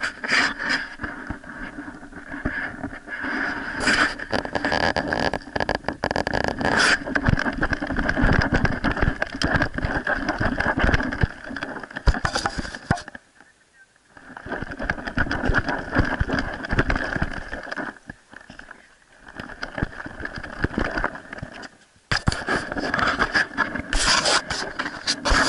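Scraping, rubbing and knocking from a camera worn on a Springer Spaniel puppy's collar as she moves about and noses in the snow, broken by a few short quiet pauses when she stops.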